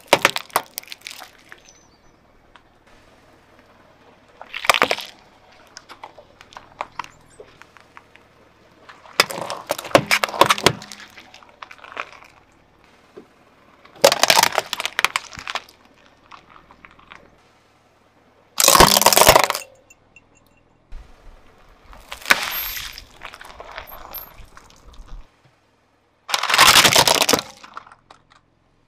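Objects being crushed under a car wheel: about seven separate bouts of cracking and breaking a few seconds apart, some brief snaps and some longer crunching bursts lasting a second or more, with smaller crackles between them.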